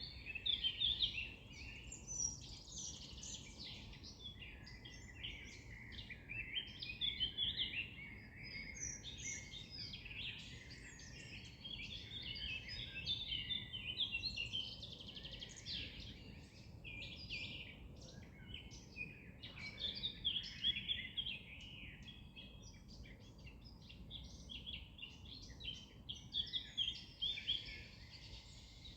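Several songbirds singing and chirping at once, a dense, unbroken chorus of short high twittering phrases, over a faint low background hum.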